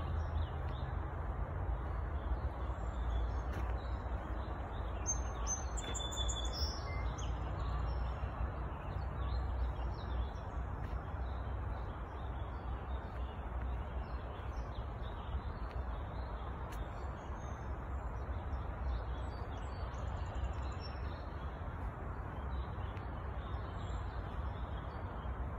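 Wild birds chirping, with a few short high calls about five to seven seconds in and again near twenty seconds, over a steady low rumble.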